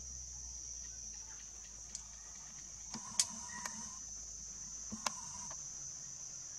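Steady high-pitched insect drone in dry forest. A few sharp clicks break in, the loudest about three seconds in and another about five seconds in.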